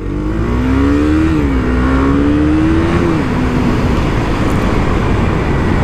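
Husqvarna Svartpilen 200's single-cylinder engine pulling away and accelerating. The pitch rises, drops at an upshift about a second and a half in, climbs again and drops at a second upshift about three seconds in, then holds steady. Wind rush grows as the speed builds.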